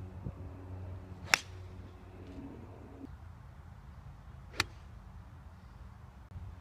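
Two crisp clicks of a golf club striking the ball in full swings, about three seconds apart, the first louder, over a low steady background rumble.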